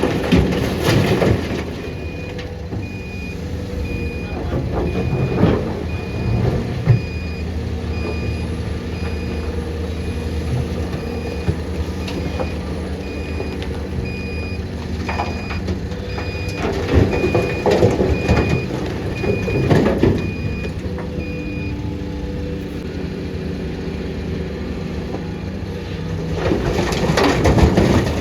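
Heavy diesel machinery running steadily while a reversing alarm beeps at an even pace, stopping about three-quarters of the way through. Several louder rough swells rise over the engine noise.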